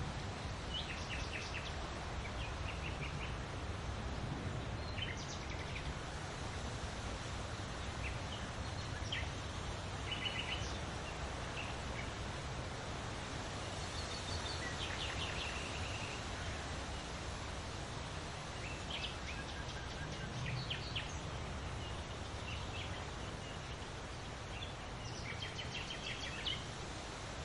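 Wind rustling through large leaves in a steady hiss with a low rumble, while small birds chirp in short bursts every few seconds.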